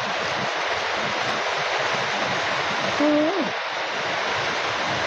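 Heavy rain falling steadily, a dense even hiss. About three seconds in, a man's voice makes a brief rising-and-falling hum.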